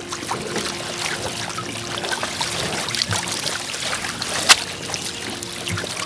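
Water trickling and dribbling, with scattered small clicks and one sharp knock about four and a half seconds in.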